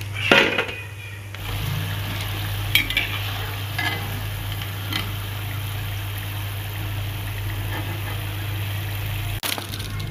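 Hot oil sizzling steadily around ring murukku deep-frying in a pan, with a few short clinks and scrapes of a metal slotted ladle against the pan as the rings are lifted out. The loudest clink comes right at the start.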